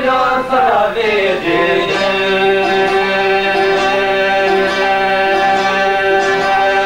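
Men singing an Albanian folk song. A gliding, ornamented vocal line settles about two seconds in into one long held note.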